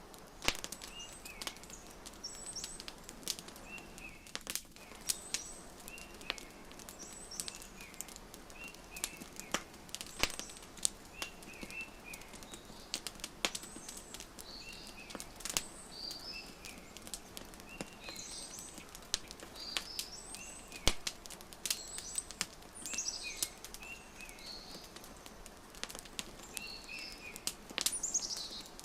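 Wood fire crackling, with frequent irregular sharp pops over a soft hiss, while small birds chirp and twitter in short repeated phrases.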